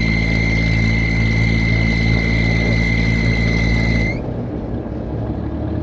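Vehicle engine running steadily under way, with a steady high whine over it; about four seconds in the whine stops and the engine note drops and thins, as if the throttle is eased off.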